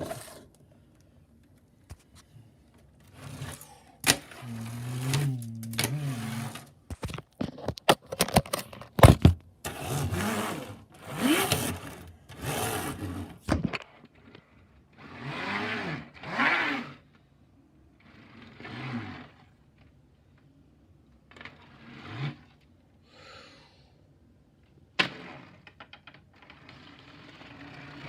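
Hard plastic LEGO Technic parts clicking and knocking as the snowmobile model is handled, mixed with several bursts of a person's voice that rise and fall in pitch. The clicks come in a quick cluster about a third of the way in, with a single sharp knock near the end.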